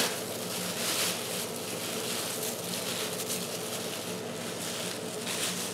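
Pot of butternut squash soup boiling, a steady bubbling hiss.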